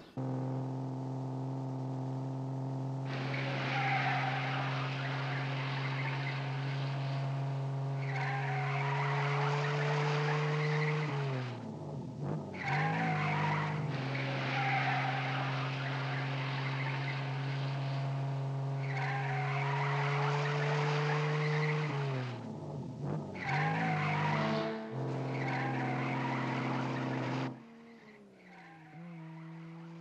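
Car engine running in gear, its pitch creeping up and then dropping sharply twice, with long stretches of tyre squeal as the car takes curves. The engine sound drops away abruptly near the end.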